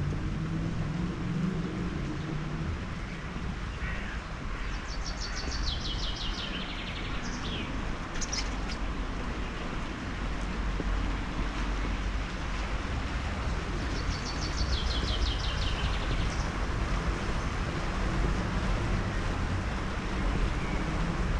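A songbird sings twice, about ten seconds apart. Each song is a fast trill of high notes that steps down to a lower pitch partway through, with short chirps in between. Under it runs a steady low outdoor rumble.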